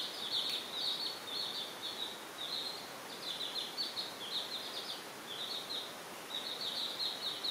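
Baby chicks peeping: a near-constant stream of short, high cheeps in quick clusters, with only brief pauses.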